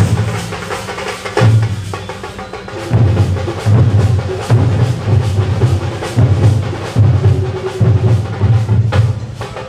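A troupe of Kerala chenda drums beaten with sticks: rapid strokes over deep booming beats that swell in short surges about once a second.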